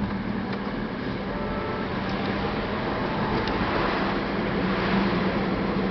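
Vehicle driving on a paved road: a steady engine hum under tyre and wind rush, which grows a little louder about halfway through.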